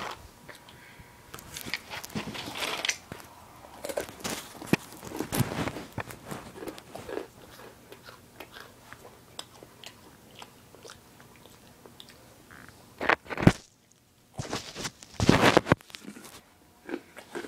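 Close-up chewing and crunching of a crunchy snack: many small crisp crunches, with two louder rubbing noises near the end.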